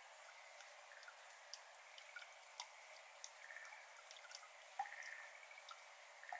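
Faint water drops falling into a shallow flooded iris bed: scattered, irregular drips, with one louder plop about five seconds in. Right after it comes a short faint rattling trill from a Schlegel's green tree frog.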